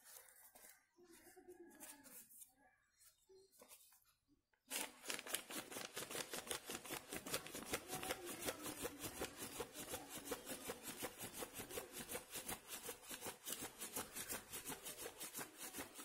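Near silence, then about five seconds in a folded paper flapping bird starts having its wings flapped by hand: a faint, even paper flutter of about four to five strokes a second.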